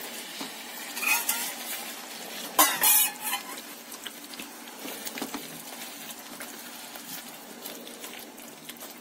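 Silicone spatula stirring thick, syrupy vermicelli in a pan on the stove, with a soft sizzle under it and two louder clatters against the pan about one and three seconds in. The sugar syrup is being worked into the half-cooked sewai so that it absorbs.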